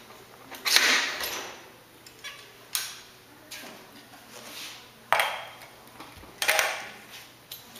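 Aluminium bicycle-trailer parts knocking and clanking as they are handled and set down on a wooden workbench. There are four sharp knocks: the loudest about a second in, then three more spread over the following six seconds, with quiet rattling between them.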